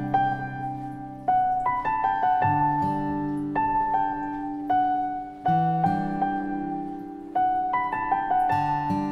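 Slow piano music: chords and single melody notes struck about once a second, each ringing and dying away before the next.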